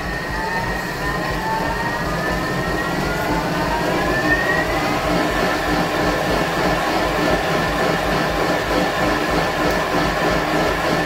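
Thermomix TM6 food processor chopping fish-stock ingredients at speed 7: the motor's whine rises over the first five seconds or so, then holds steady at full chopping speed over a churning noise.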